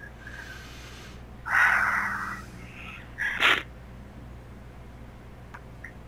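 Breathy sounds from a person: a long, heavy breath out about a second and a half in, then a short, sharp breath or sniff about three seconds in.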